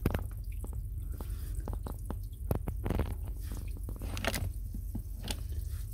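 Water draining in a thin stream from the knock-sensor port of a boat's inboard engine block and splashing below, heard as irregular small ticks and splashes over a low steady rumble. The engine block is being drained of its water for winter.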